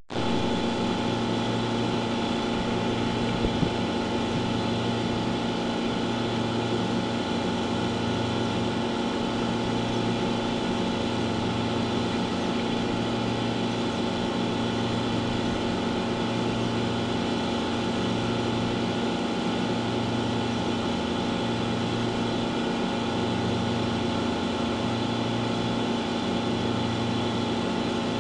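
Steady mechanical hum of running machinery, with several held tones and a low throb that pulses about every second and a half. Two faint clicks come about three and a half seconds in.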